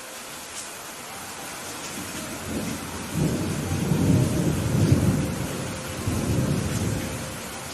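Steady rain falling, with a low rumble of thunder that swells up a few seconds in, is loudest around the middle and dies away near the end.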